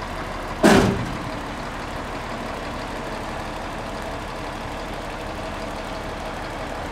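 Hooklift truck's diesel engine running steadily while its arm holds a steel container. A single loud bang about a second in stands well above the engine.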